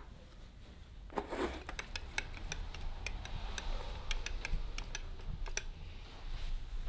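Wooden stick stirring liquid in a thin plastic cup, ticking and tapping against the cup's walls in quick, irregular clicks, over a low steady hum.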